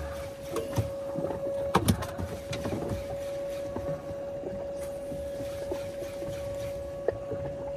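Small boat's electric trolling motor whining at one steady pitch over a low rush of water and wind, with a pair of sharp clicks about two seconds in and another click near the end.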